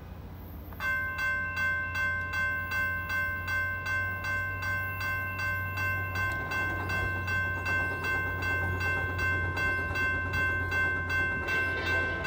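Railroad crossing warning bell starting to ring about a second in, then striking steadily about twice a second as the crossing signals activate for an approaching train, over a steady low hum.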